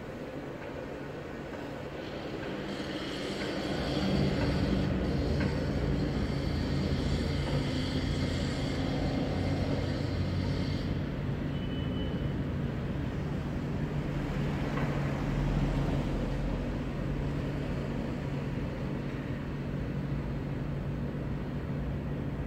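City traffic running steadily below, with a low engine hum. It grows louder about three seconds in as a vehicle passes, and eases off again about eleven seconds in.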